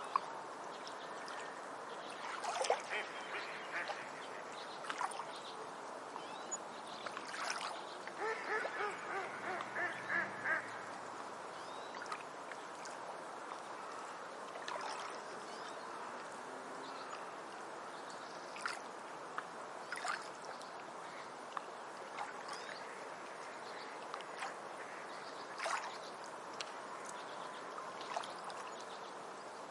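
Forest ambience: scattered bird calls over a steady background hiss, with a quick run of repeated honking, duck-like calls about eight to eleven seconds in.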